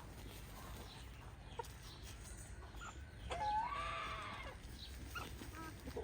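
Free-range chickens clucking with short scattered calls, and one longer drawn-out call a little over three seconds in.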